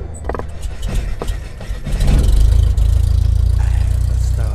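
Sound effects for an animated logo intro: a few sharp clicks and crackles, then about two seconds in a deep bass hit that swells into a loud, sustained low drone.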